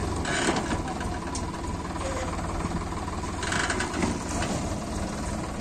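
Tractor diesel engine idling steadily, with two short hissing bursts, about half a second in and again about three and a half seconds in.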